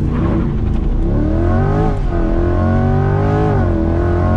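Corvette C8 Stingray's mid-mounted 6.2-litre V8 at full throttle under launch control. The engine note climbs steadily, drops sharply at quick dual-clutch upshifts about two seconds in and again about three and a half seconds in, then climbs again.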